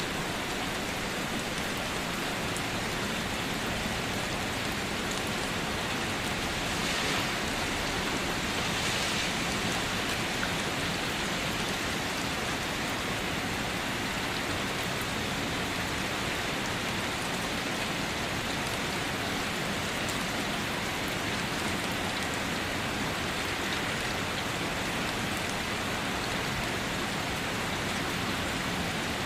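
Steady rain falling, an even hiss of many drops. It swells slightly for a few seconds about a quarter of the way in.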